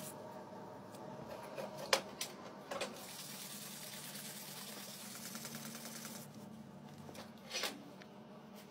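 Sandpaper rubbed by hand along a steel knife blade, a dry hissing scrape, with a few sharp knocks about two seconds in, a little later, and near the end, over a low steady hum.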